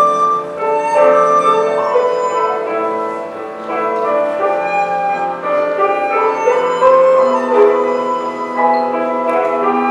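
Chinese bamboo flute (dizi) playing a solo melody over a backing accompaniment, with several notes sounding at once beneath it.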